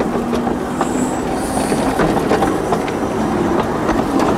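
Miniature railway train running along its narrow-gauge track, heard from on board: a steady rattle of wheels with scattered clicks over the rail joints, and a couple of brief high wheel squeals about a second in.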